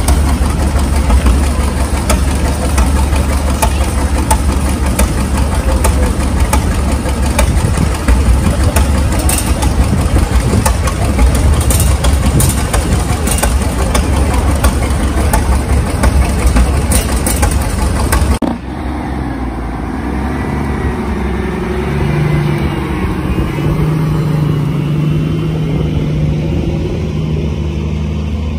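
Large exposed engine on a vintage truck running loud, with sharp crackles through its note. About two-thirds of the way through, the sound cuts abruptly to a quieter, steadier engine idling.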